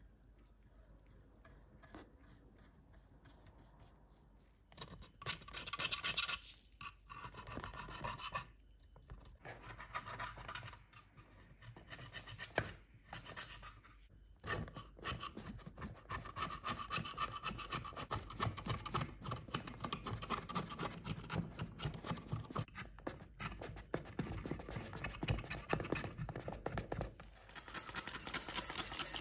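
Scratching and rubbing on a diecast metal model bus body as softened paint is brushed and scraped off with a thin metal tool, in quick repeated strokes. It is faint at first and turns busier and steadier about halfway through.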